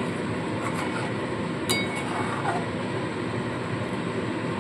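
Milk-based curry gravy heating toward a boil in a metal kadai over a gas burner: a steady hiss, with one sharp clink of the metal spatula against the pan a little under two seconds in.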